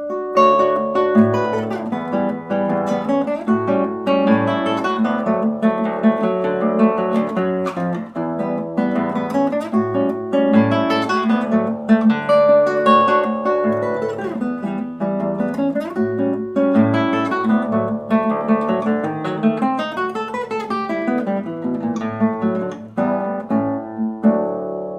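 Solo acoustic guitar playing a Brazilian choro: quick plucked melody notes over a steadily repeating bass line, with a brief dip in loudness near the end.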